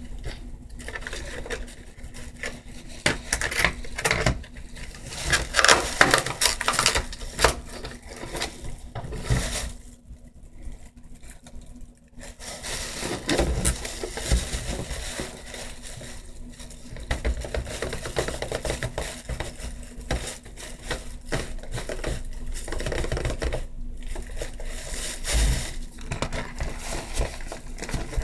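Hands handling small hard items from an acrylic nail kit: irregular clicks, taps and scratchy scraping, busiest in the first few seconds and again from the middle onward, with a short lull near the middle.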